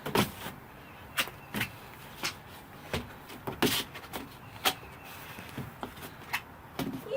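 Someone bouncing on a backyard trampoline: a string of irregular short creaks and thumps from the springs and mat.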